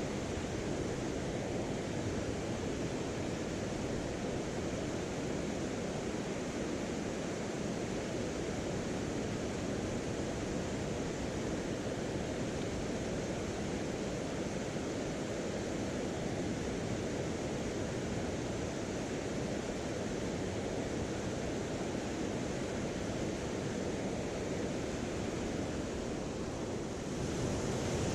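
Steady rush of flowing water from a mountain stream, an even hiss with no distinct events, a little louder near the end.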